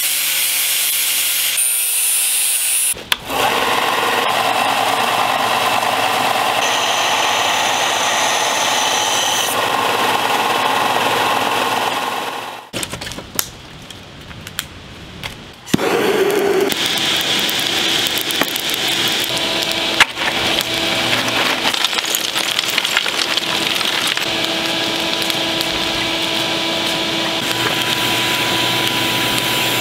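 Angle grinder running and grinding a steel knife blank, a loud steady whine with scraping noise, in long stretches broken by a quieter gap about halfway.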